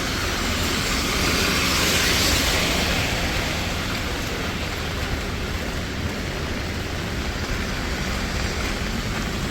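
Heavy rain falling on the street, a steady hiss that swells briefly about two seconds in.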